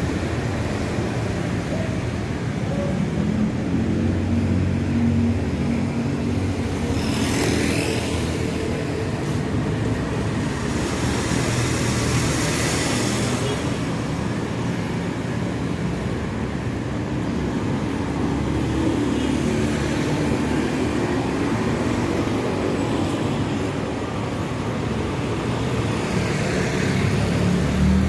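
Street traffic: a steady hum of motor vehicle engines, with vehicles passing close by about a third and halfway through and again near the end.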